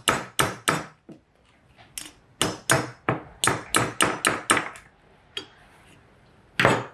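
A hammer taps a punch to knock a throttle-spindle bearing out of a Dellorto DHLA carburettor body. Sharp metallic knocks come three in the first second, then a quicker run of about a dozen, three to four a second, from about two to five seconds in. One louder knock comes near the end.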